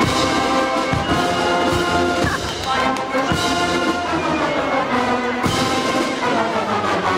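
Marching band playing on the march: brass, including sousaphones, sounds held chords and a tune over regular drum beats.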